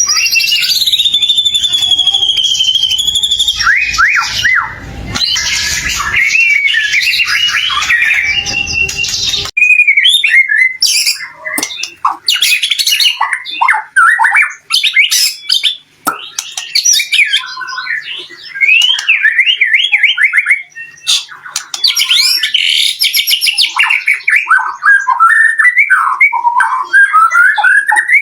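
White-rumped shama (murai batu) singing in full voice: a fast, varied run of whistles, trills and rapid repeated notes with only brief pauses. Over the first nine seconds there is a background hiss, which cuts out abruptly.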